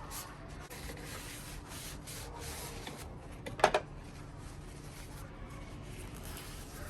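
Paper cloth rubbing and wiping over a corroded metal nut and thread in repeated strokes, clearing off the corrosion dust. A short sharp knock sounds about halfway through.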